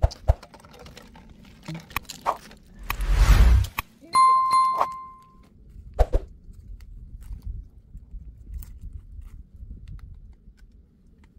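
Subscribe-button sound effect: a whoosh about three seconds in, then mouse clicks and a bell ding ringing for about a second and a half. Faint rustling and small clicks from branches of a wild pistachio tree being handled run underneath.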